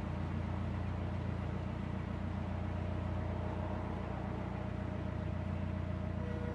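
Narrowboat engine running steadily at low cruising revs, a continuous low hum.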